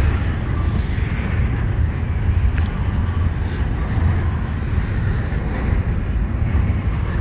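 Intermodal freight train's double-stack well cars rolling slowly past close by: a steady low rumble of steel wheels on the rails.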